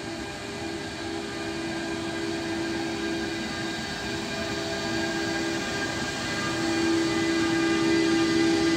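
Bombardier TRAXX E.483 electric locomotive hauling a container freight train through a station, getting louder as it draws alongside. A steady hum runs over the rumble of the wheels and wagons.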